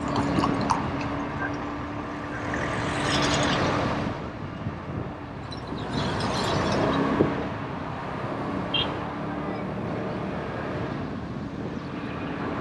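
Motorbike under way at a steady speed: the engine's even hum under rushing wind and road noise, which swells twice.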